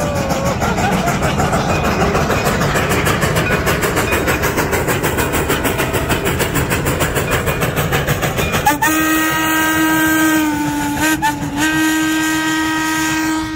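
Steam locomotive working hard as it pulls its train away, its exhaust chuffing in a rapid, even rhythm of about six beats a second. About two-thirds of the way in, its steam whistle sounds one long blast, with a brief break partway, that lasts to the end.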